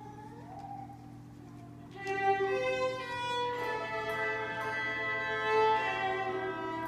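A handbell choir starts playing about two seconds in, after a faint hum. Several handbells are rung together, and their chords ring on and overlap.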